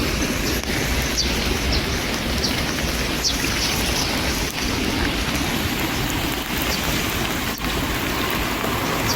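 Steady rain, a continuous hiss with a few faint light ticks.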